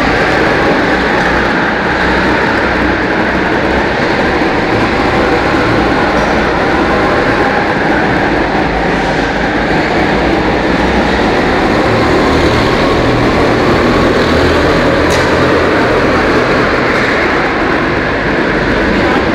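Go-kart engines running, a loud, steady blended engine drone with no single engine standing out.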